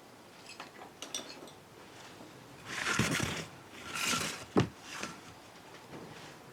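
Metal hand tools and engine parts clinking and scraping during engine teardown: a few light ticks, two short rattling scrapes, then one sharp metal clank about four and a half seconds in.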